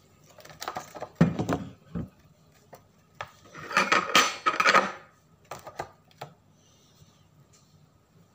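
Handling noises from a Paldo Jumbo Noodle cup and its paper lid on a table: two bouts of rustling and clattering, about a second in and again around four seconds in, then a few light knocks.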